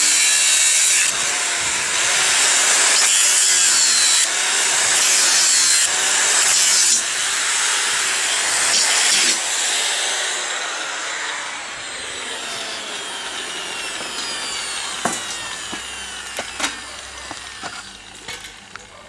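Angle grinder with a cutting disc biting into 6 mm steel plate, its level stepping up and down as the cut is pressed. Over the second half the grinder runs down with a falling whine, and a few sharp clicks come near the end.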